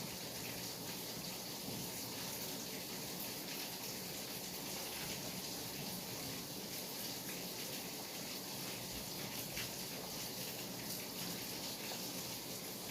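Steady rain falling: a continuous even hiss with scattered small drop ticks.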